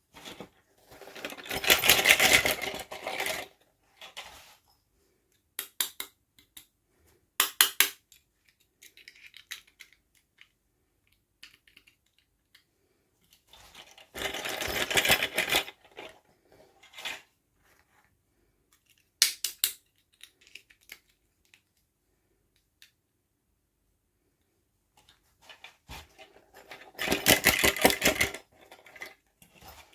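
Toy unboxing handling sounds: three bursts of rustling and clattering, each about two seconds long, with short clicks and taps between them.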